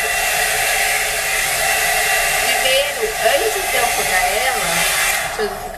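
Lizz rotating hot-air brush blowing air steadily, its bristle head not yet set turning. It cuts off just before the end.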